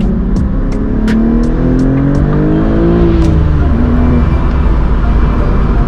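BMW M4 G82's twin-turbo inline-six accelerating, its pitch rising for a couple of seconds, dropping about three seconds in as the revs come down or a gear is changed, then running on steadily. A few sharp clicks in the first two seconds.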